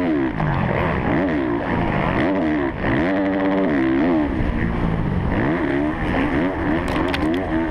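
Kawasaki KX450F single-cylinder four-stroke motocross engine at race pace, heard close up from on board, its pitch climbing and dropping again and again as the throttle opens and closes, holding high for about a second midway. A few sharp ticks near the end.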